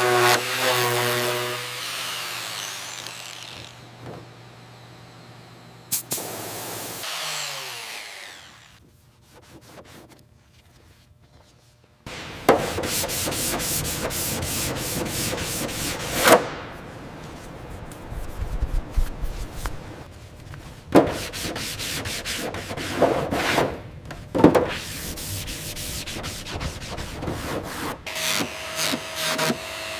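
Workshop hand-work sounds: repeated rubbing and scraping strokes, as in sanding or scraping a surface. The strokes are uneven and come in runs, with a few sharper hits. They are preceded by a short falling tone and a nearly quiet pause in the first half.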